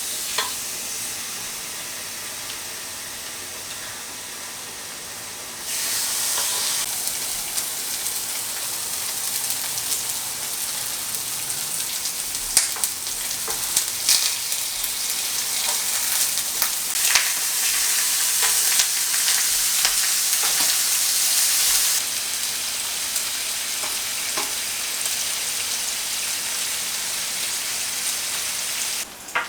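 Pork belly sizzling on a hot grill pan: a steady frying hiss with frequent sharp pops of spattering fat. It jumps louder about six seconds in, drops back around twenty-two seconds, and stops abruptly at the end.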